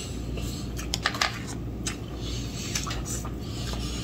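Eating sounds at a table: a fork clicking and scraping against a plate and plastic takeout containers, with a cluster of light clicks about a second in and a few fainter ones later, over a steady low hum.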